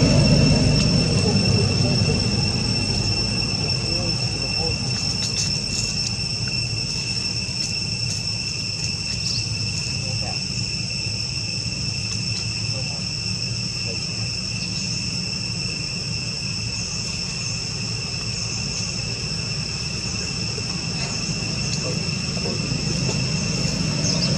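Steady high-pitched drone of insects, one unbroken tone with a fainter higher overtone. Underneath is a low rumble that is louder near the start and the end.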